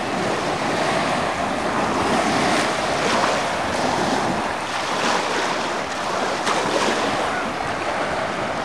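Small waves washing onto a sandy shore, with wind blowing across the microphone.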